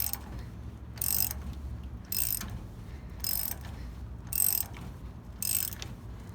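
Ratcheting wrench clicking in short bursts about once a second, six times, as it is swung back and forth to turn the forcing screw of a ball joint press that is pushing a rubber eye bushing out of a leaf spring. A steady low hum runs underneath.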